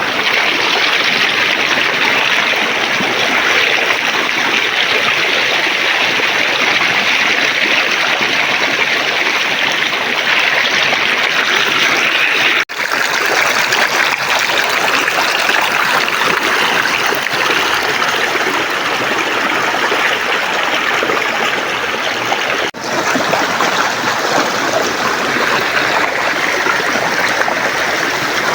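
River water flowing steadily over rocks, a dense rushing burble, with two very brief dropouts about 13 and 23 seconds in.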